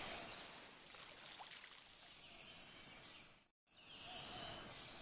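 Faint, even background ambience hiss, with a few thin high notes, breaking off completely for a split second about three and a half seconds in.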